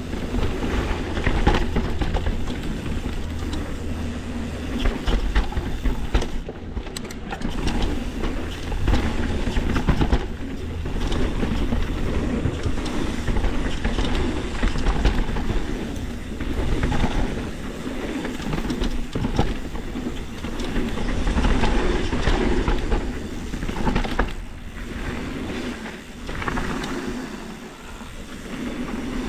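Mountain bike riding down a rough dirt trail: a continuous rumble of tyres over dirt and rocks, with frequent short knocks and rattles from the bike.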